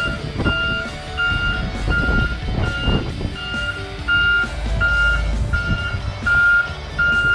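Reversing alarm on a 6x6 dump truck beeping steadily, about one and a half beeps a second, as the truck backs up, over the low rumble of its engine.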